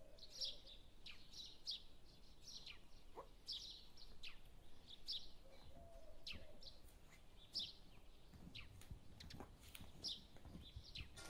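Faint, high chirps of a small bird, repeated about once or twice a second, over a quiet room.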